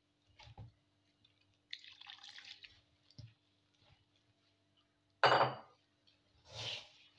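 Hand rubbing and squeezing damp wheat flour into a crumbly dough in a stainless steel bowl: short gritty, wet squelching sounds, with a much louder sudden sound a little after five seconds in.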